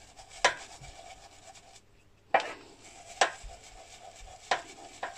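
Soapy paintbrush being rubbed in circles against the palm of a hand, working olive-oil soap lather down into the base of the bristles: soft wet rubbing with four sharp clicks spread through it.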